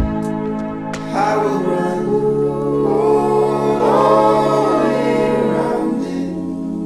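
Music: layered, choir-like vocal harmonies that come in about a second in and swell over held chords, with no clear words.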